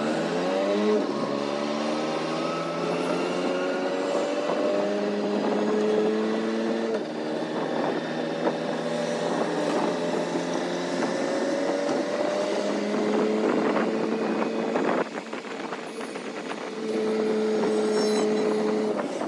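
Auto-rickshaw engine running under way, heard from inside the open cabin with road and wind noise. Its pitch rises and levels off several times as it pulls through the gears, easing off briefly about three-quarters of the way through before steadying again.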